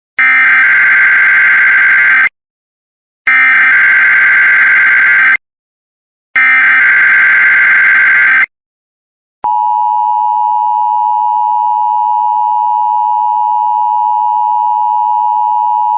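Emergency Alert System SAME header for a Required Weekly Test: three identical bursts of digital data tones, each about two seconds long and about a second apart. About nine seconds in, the steady two-tone EAS attention signal begins and is still sounding at the end.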